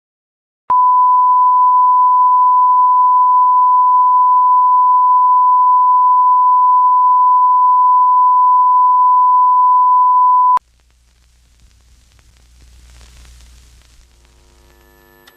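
Television off-air test tone: one loud, steady pure tone around 1 kHz, the signal sent with colour bars when there is no programme, lasting about ten seconds before cutting off suddenly. After it comes a faint low hum and hiss.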